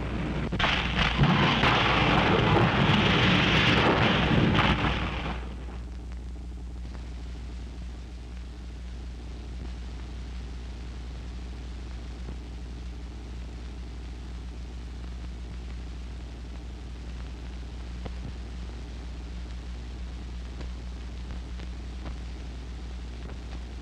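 Train wreck sound effect: a loud, dense crash with clattering impacts for about five seconds, which cuts off sharply. The steady low hum and hiss of an old film soundtrack follow.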